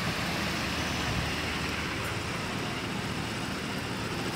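Steady road-vehicle noise: traffic and engines running, with no distinct impact.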